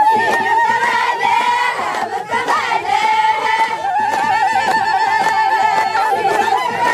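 A crowd of women ululating and singing, with hand-clapping. High warbling trilled calls are held for several seconds at a time over the group voices and the claps.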